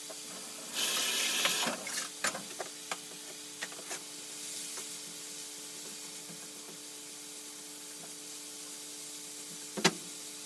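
Chopped onions and garlic sizzling in hot oil in a frying pan, with a louder hiss lasting about a second near the start and a few sharp clicks and knocks of a utensil on the pan. A steady low hum runs underneath.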